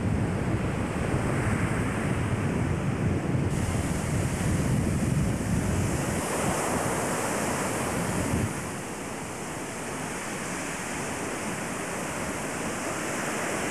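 Surf breaking on a sandy beach, with wind buffeting the microphone. The low wind rumble eases about two thirds of the way through.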